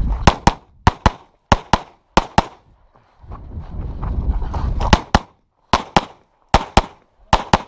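Open-division competition pistol with a red-dot sight, fired in rapid pairs. Four quick double-taps come about half a second apart, then a low rumble for a couple of seconds, then four more pairs near the end.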